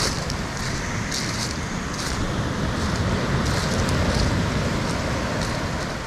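Black Sea surf washing onto a shingle beach, a steady rush with wind buffeting the microphone. Short crunches on the pebbles come every half second or so, in the rhythm of footsteps.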